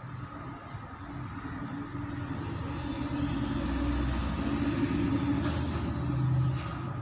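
Low mechanical rumble with a steady hum, building in loudness from about two seconds in, peaking near the end and then dropping.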